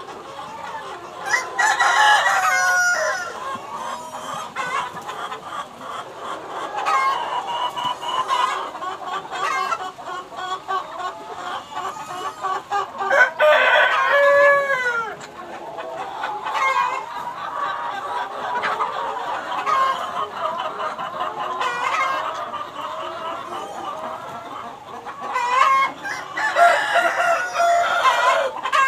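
A flock of hens and roosters clucking continuously, with a few louder drawn-out calls, likely roosters crowing, near the start, about halfway through and near the end.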